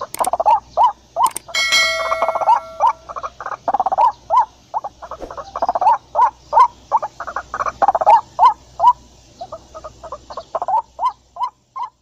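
White-breasted waterhen calling: a long run of short repeated 'ruak-ruak' notes, about three a second, thinning out in the last few seconds. A steady ringing tone with several pitches sounds over the calls from about one and a half to three seconds in.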